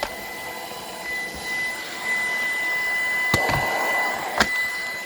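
Shark PowerDetect robot vacuum running with a steady motor whine, with two sharp clicks in the second half.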